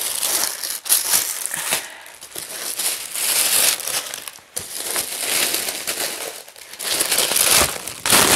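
Wrapping paper around a new handbag being unfolded by hand, crinkling and rustling in several bursts.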